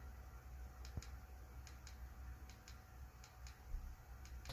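Faint small clicks, mostly in quick pairs, coming about once a second at an uneven pace: buttons being pressed on the desk's LED light controller to change the colour mode. A low steady hum lies underneath.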